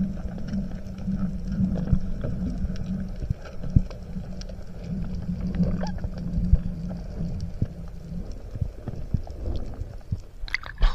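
Underwater sound from a spearfisher's camera on a freedive: a steady low hum that fades after about eight seconds, with scattered clicks and knocks, and a couple of sharp splashy sounds near the end as the camera nears the surface.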